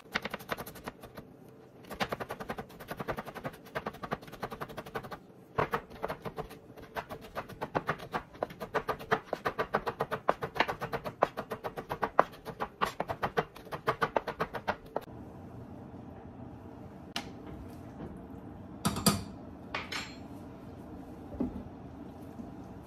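Chef's knife chopping rapidly on a plastic cutting board, quick steady taps several a second, stopping about 15 seconds in. After that a steady low hum with a few separate knocks of cookware.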